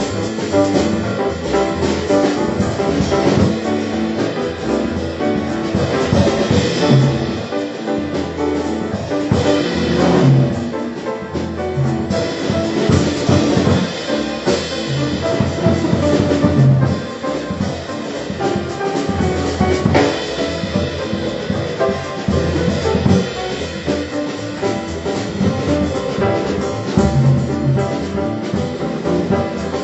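Live jazz quartet playing: saxophone, piano and bass over a drum kit.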